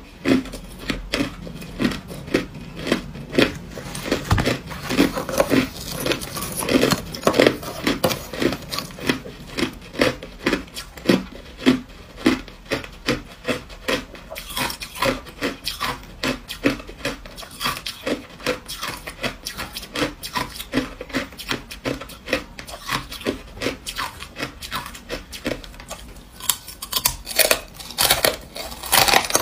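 Close-miked chewing of hard crushed ice: a steady run of crisp crunches, about two a second, with louder crunching bites near the end.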